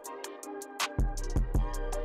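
Music with a steady beat: quick hi-hat ticks over deep bass, the bass dropping out for about the first second and coming back with a kick drum.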